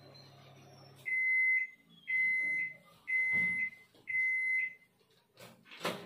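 Samsung microwave oven finishing its cooking cycle: the running hum cuts off about a second in, then four end-of-cycle beeps at one pitch, about one a second. Near the end the door is pulled open with a couple of clunks.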